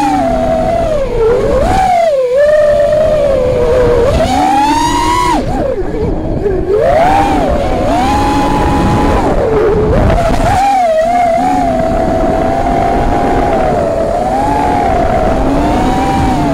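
The brushless motors and propellers of an FPV racing quadcopter whining, the pitch rising and falling with each throttle change, over a low rushing noise.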